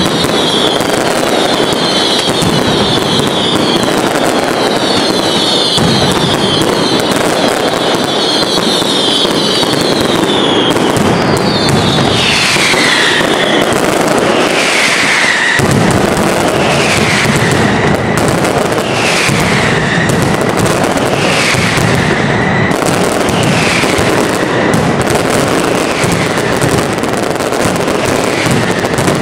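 Mascletà firecrackers going off in a dense, unbroken crackle of bangs. Falling whistles ride over it, many overlapping for the first ten seconds, then one about every second and a half until a little past the middle.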